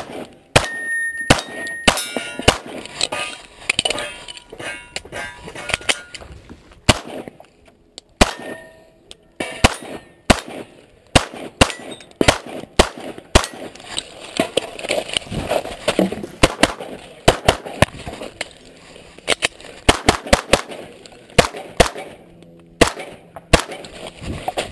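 Strings of 9mm pistol shots fired in quick succession, with short pauses between strings, some followed by the ringing of struck steel targets.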